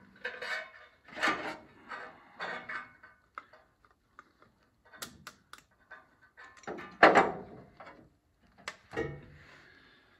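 Hands and tools working at the distributor cap in the engine bay, making an irregular run of clicks, scrapes and rustles as the cap is worked loose, with one sharp clack about two-thirds of the way through.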